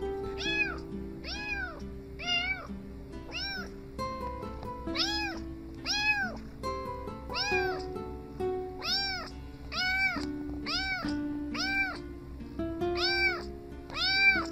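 A tabby kitten meowing over and over, well over a dozen short calls that each rise and fall in pitch, with a brief pause about halfway through. Background music with a steady beat plays underneath.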